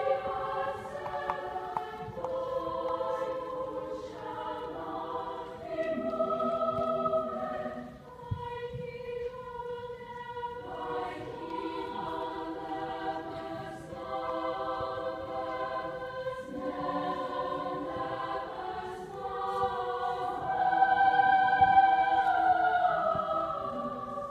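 A choir singing in several-part harmony with long held chords. It swells to its loudest about three-quarters of the way through, then eases as the line falls.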